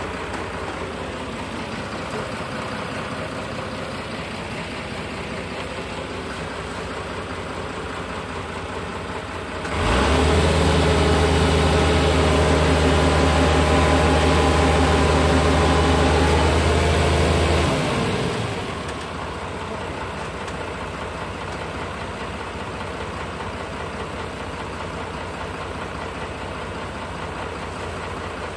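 Boom lift's engine idling steadily, then speeding up about ten seconds in to a louder, steady higher-revving note for about eight seconds as the lift works, before easing back down to idle.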